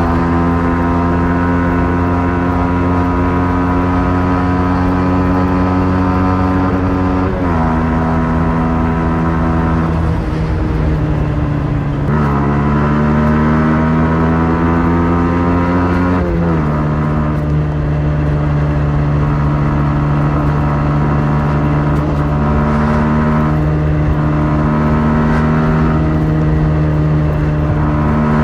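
Yamaha MT-15's 155 cc single-cylinder engine and stock exhaust under way. It holds steady revs, drops in pitch with an upshift about seven seconds in, eases off, then climbs in pitch for a few seconds. It drops again with another upshift about halfway through and settles into steady cruising.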